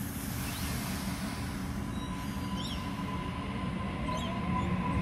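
Sydney Trains Waratah double-deck electric train pulling away from the platform: a steady rumble with a steady high tone, and a faint rising traction-motor whine coming in about halfway through as it gathers speed.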